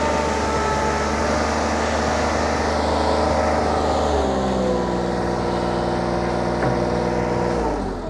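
Kubota diesel engine of a Kymron XTL30 stand-on tracked skid steer running steadily under throttle as the machine drives. Its note drops to a lower pitch about four seconds in and falls off again just before the end.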